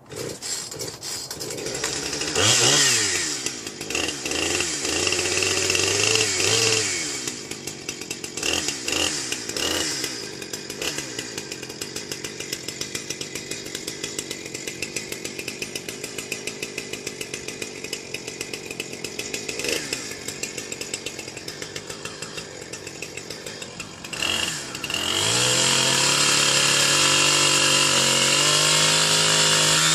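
Two-stroke chainsaw starting up and revving up and down several times, then idling unevenly with short throttle blips. In the last few seconds it is held at high, steady revs.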